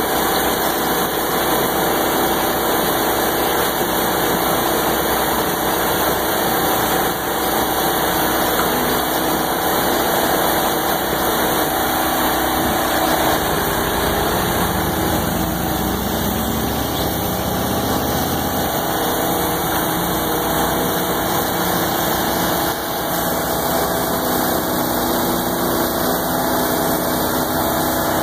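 Engines of the road-coating rig, a gravel spreader machine fed by a dump truck, running steadily at a constant pitch.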